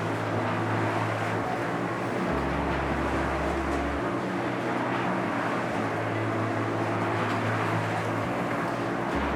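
The engine of the concrete-pouring machine running steadily, its low hum shifting every couple of seconds.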